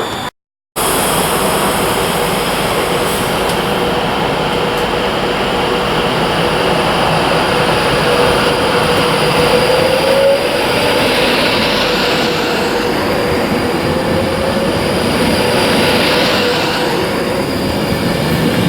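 A train running on the rails with a steady, loud rumble and a faint thin whine or squeal, after a brief cut to silence just after the start.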